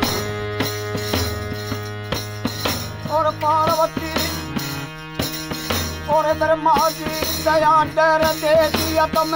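Devotional Hindi song (a mata ki bhent) with a steady percussion beat over a held bass line. About three seconds in, a wavering lead melody comes in, breaks off for a second or two, then resumes.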